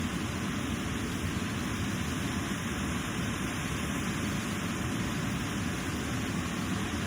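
Steady, unbroken noise of the Elk River's falling and flowing water.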